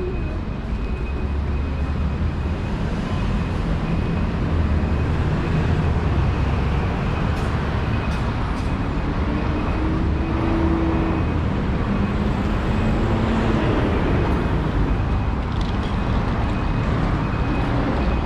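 City road traffic: a steady low rumble of cars and buses running on a wide road, with one vehicle's engine hum rising and then falling near the middle.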